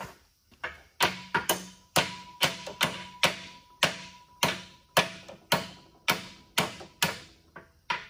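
Hammer blows on the steel rake head and its rivet held in a bench vise, knocking the rake free: steady sharp strikes about twice a second, each with a short metallic ring.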